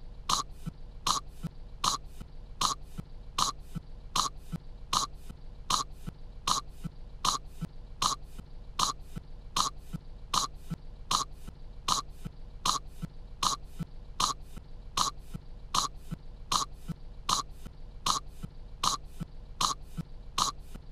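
A cartoon girl coughing over and over on kettle corn, in short sharp coughs repeating evenly about three times every two seconds as a steady loop.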